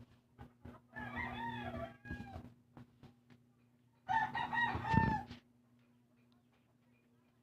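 A rooster crowing twice, first about a second in and again, louder, at about four seconds, each crow just over a second long.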